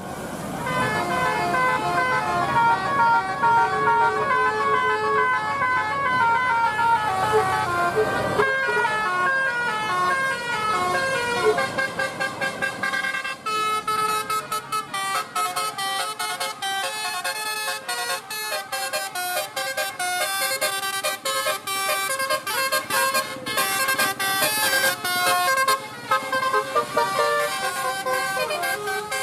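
Bus 'telolet basuri' melody horn, a multi-trumpet air horn, playing a tune in stepped notes. The bus engine rumbles underneath for the first eight seconds or so. From about thirteen seconds in, the horn plays fast, clipped staccato notes.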